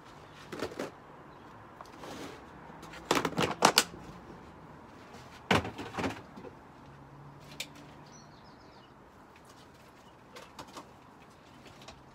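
Knocks and clatters of containers being handled, moved and set down, a scattering of short hits with the loudest cluster about three to four seconds in and quieter ones later.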